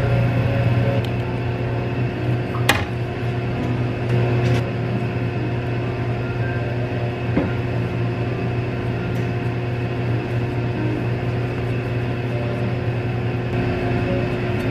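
Steady low hum of a running motor, with one sharp click a little under three seconds in and a softer tap about seven seconds in.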